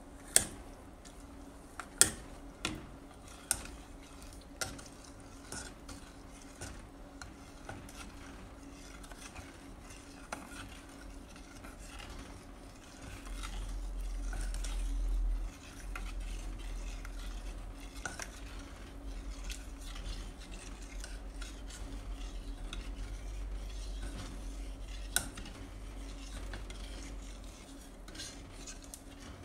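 A metal spoon stirring cooked azuki beans and sugar in a stainless steel pot, scraping and clinking against the pot: sugar is being worked into the beans to make sweet red bean paste. There are several sharp clinks in the first few seconds and another later on, and a low rumble runs through the middle.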